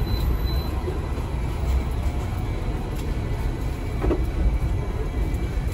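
Hong Kong double-decker tram running along its rails, heard from on board: a steady low rumble of wheels and running gear.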